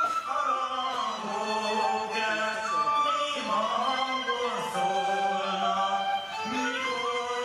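Hungarian folk music with a group of voices singing a folk song together, the melody moving in steady sung lines.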